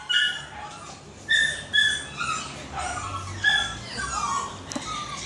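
Small dog crying out in a string of short, high-pitched yelps and whines while being bathed, a sign of distress at the wash; a sharp click comes near the end.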